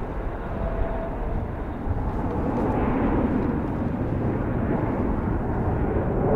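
Jet noise from a Bombardier Global 7500's twin GE Passport turbofans as the business jet climbs away: a steady, dense rumble that grows louder about two seconds in.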